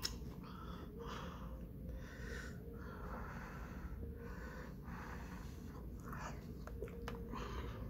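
A person blowing on a forkful of hot, fresh-from-the-oven chicken enchilada to cool it, in a run of short breathy puffs.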